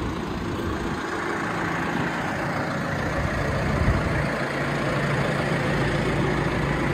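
Case 125 tractor's diesel engine idling steadily, a low even hum.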